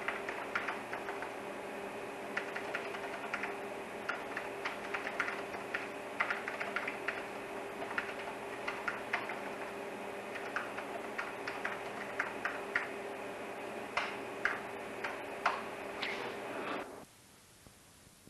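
Rapid, irregular light clicks over a steady hum with a held low tone. The hum and clicks cut off abruptly near the end.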